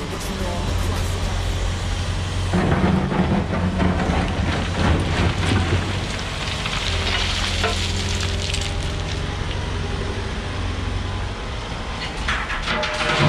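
Volvo EWR150E wheeled excavator working, its diesel engine running steadily under load while the bucket scrapes and loose spoil rumbles and crunches as it loads a tipper truck. The crunching is heaviest a few seconds in and again near the end.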